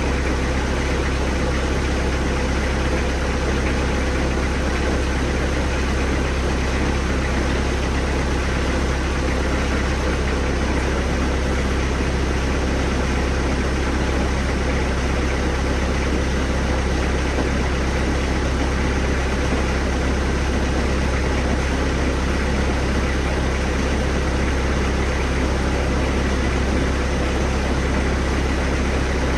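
1999 Bobcat 763 skid steer's diesel engine running steadily with a deep, even hum.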